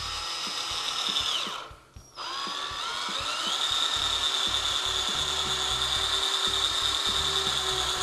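Power drill driving a GRK R4 screw into pressure-treated lumber. The motor whines, stops briefly about two seconds in, then starts again, rises in pitch and runs steadily.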